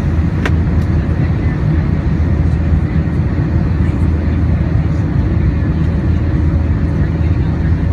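Airbus A321-200 engines and airflow heard from inside the passenger cabin during the climb after takeoff: a steady, loud, deep drone. A brief click sounds about half a second in.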